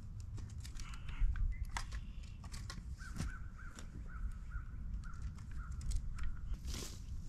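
A bird calling in a run of about ten short, evenly repeated notes, starting about three seconds in and stopping near the end. Scattered clicks and knocks from hand work in the soil and a steady low rumble lie under it.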